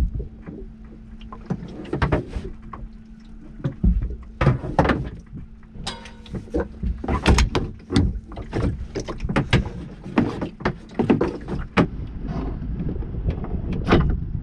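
A small boat being winched onto its trailer: irregular clanks and knocks from the hand winch and the hull on the trailer, over a steady low hum.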